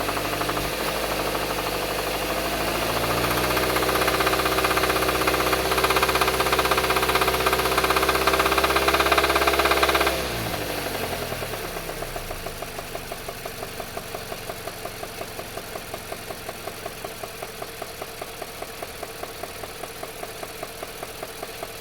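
2016.5 Mazda CX-5's four-cylinder engine revs up and holds steady at around 2000 rpm, then drops back to idle about ten seconds in. At idle a loud, even ticking repeats several times a second. It is the unexplained idle tick the owner is chasing, with the oil level checked as good.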